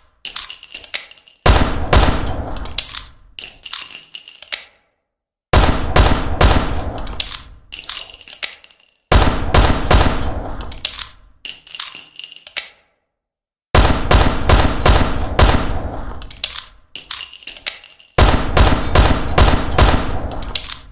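Ruger LCR revolver firing in quick strings of shots. Each string opens with the loudest report and trails off into quieter cracks and metallic clinks, with short silences between strings.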